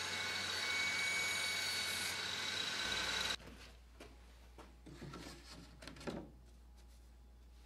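Table saw running with a steady whine as it rips a thin plywood panel; the sound stops abruptly about three and a half seconds in. Faint knocks and rubbing of wood being handled follow.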